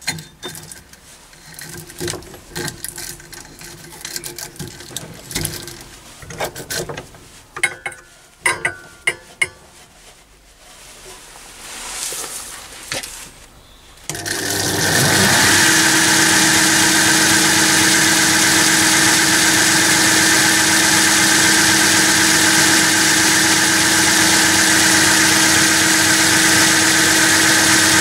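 Scattered clicks and knocks of a drive belt being changed over by hand on a belt-driven mini lathe. About halfway through, the lathe's 1400 RPM motor is switched on and drives the spindle through a link belt at 960 RPM, a loud, steady running hum that does not vary.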